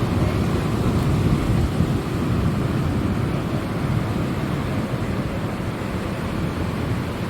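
Steady low rumble of wind buffeting the microphone, mixed with the wash of ocean surf on a rocky shore.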